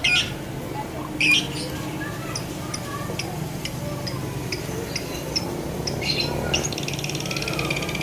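Lovebirds calling: two shrill squawks near the start, then scattered short high chirps, and from about six and a half seconds in a fast, continuous chattering trill.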